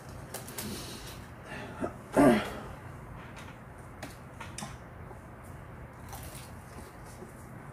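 Light clicks and taps of wooden chopsticks picking at fried chicken in a paper-lined takeout box, with one short, loud throat sound falling in pitch about two seconds in, like a cough or throat clearing.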